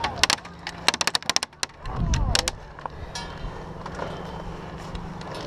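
Airsoft gunfire: a quick run of sharp cracks through the first two and a half seconds, including a rapid full-auto burst of about a dozen shots a second, then a steady low hum.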